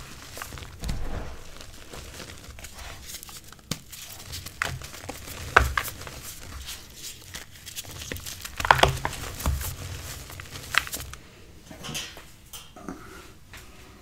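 Reformed gym chalk being squeezed and crumbled in bare hands: irregular soft crunching and crackling, with a few sharper cracks as chunks break apart in the middle stretch, dying down near the end.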